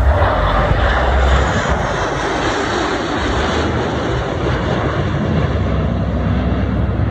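Jet roar of the US Air Force Thunderbirds' F-16 fighters flying past in formation. It is loudest in the first couple of seconds and eases off a little as the formation moves away.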